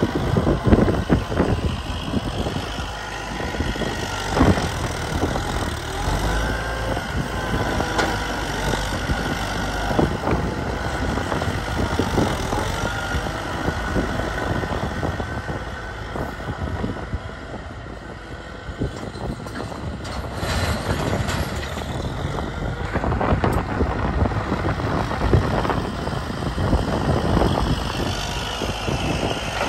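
Kubota M9540 tractor's diesel engine running as the tractor drives and works its front loader, with a few knocks and clatter in the first seconds.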